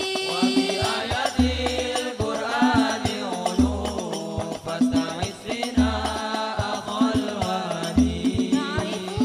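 Hadrah al-Banjari ensemble performing a sung sholawat: voices singing over a dense, fast rhythm of hand-struck terbang frame drums. A deep bass drum stroke lands about every two seconds.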